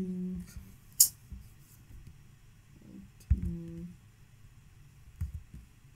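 Two short, wordless hums from a man, one at the start and one about three seconds in. Between them comes a single sharp click of a computer keyboard key about a second in, with a few faint knocks of typing.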